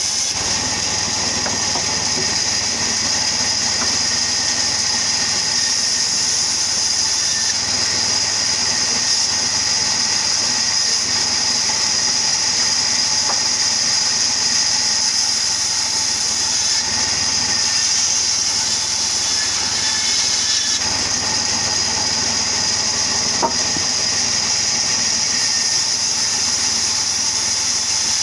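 Sawmill wood-cutting machine running steadily: a continuous high hiss over a mechanical hum, without a break or change in load.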